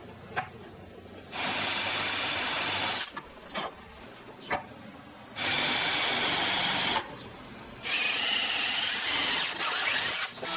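Power drill boring into pine through a drill guide block, in three separate runs of about a second and a half each, with short pauses between.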